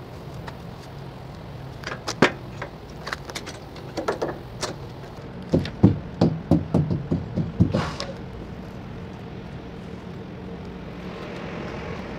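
Sharp knocks and taps on a semi-trailer's tandem wheels during a driver's walk-around inspection: a pair about two seconds in, a few more, then a quick run of about ten strikes around the middle. A steady low hum runs underneath.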